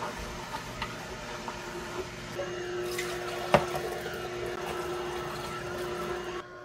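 Vertical slow juicer running, pressing apple and kale, with green juice pouring in a stream into a glass jug. A single sharp knock about three and a half seconds in.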